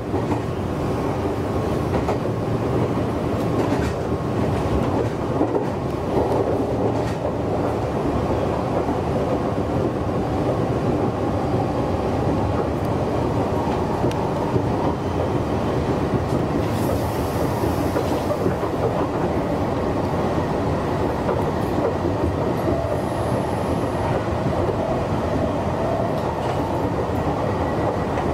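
Meitetsu 6800 series electric train running between stations, heard from inside the front car: a steady rumble of wheels on rail with occasional clicks over rail joints.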